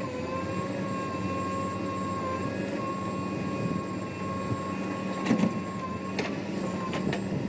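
Heavy machinery's diesel engine running steadily with a high whine over a low hum. A few sharp knocks come about five, six and seven seconds in.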